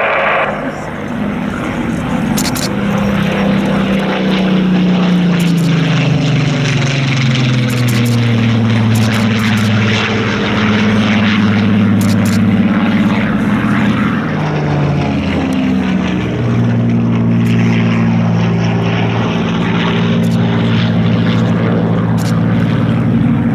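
Piston engine of a Second World War propeller fighter on a low display pass, its drone sliding down in pitch as it goes by and climbs away. In the last third a steadier drone from multi-engine piston propeller aircraft takes over.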